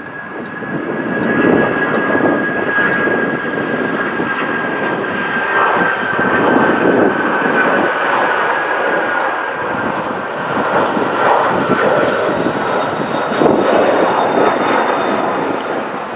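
Boeing 767-300's twin jet engines running at high thrust, most likely on the takeoff run and climb-out. A loud, steady rush with a whining tone that slowly falls in pitch as the aircraft moves past.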